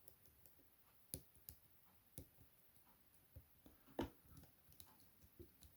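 Faint, irregular metallic clicks and ticks of a lock pick and tension wrench working the pins of a Chubb M3 pin-tumbler lock, as each pin is tickled and tensioned to feel whether it binds. The loudest click comes about four seconds in.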